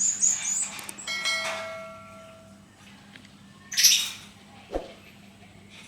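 Lovebird giving short high chirps, then one loud harsh squawk about four seconds in. These are single calls, not the long continuous ngekek chatter. A ringing tone sounds and fades between the chirps and the squawk.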